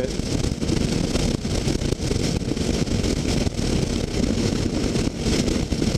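Steady rushing wind and road noise from a sport motorcycle cruising at freeway speed, with wind buffeting the microphone.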